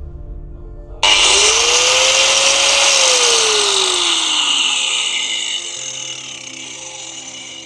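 A 900 W electric angle grinder is switched on about a second in. Its motor whine rises for about two seconds as it spins up to speed. It is then switched off and the whine falls slowly as the disc coasts down.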